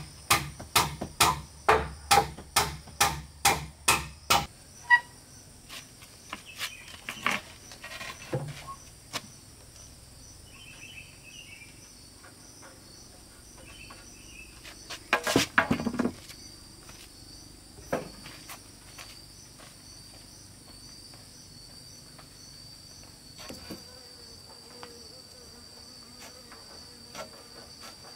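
A hammer driving nails into wooden wall boards: a quick run of blows, about two or three a second, that stops about four seconds in. Insects chirr steadily in the background, with a short clatter of wooden knocks midway.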